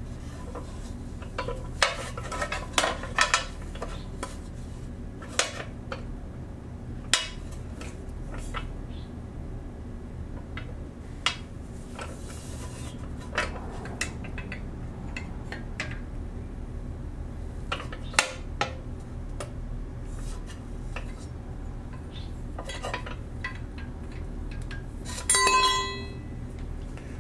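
Scattered sharp metallic clinks and taps of tools and bolts against the steel sump guard and its brackets as it is fitted under the motorcycle's engine. Near the end a metal part clatters onto the concrete floor and rings briefly.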